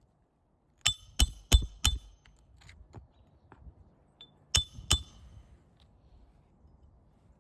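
Steel hammer driving a roofing nail into an asphalt shingle: four quick ringing strikes about a third of a second apart, then two more a few seconds later.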